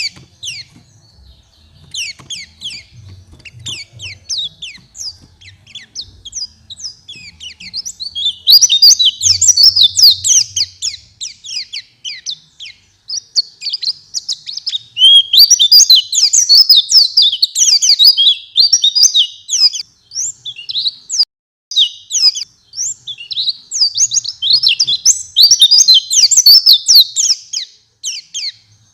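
White-eye (pleci) singing: a fast, continuous twittering chatter of high, quick down-slurred chirps. It comes in loud runs with short breaks.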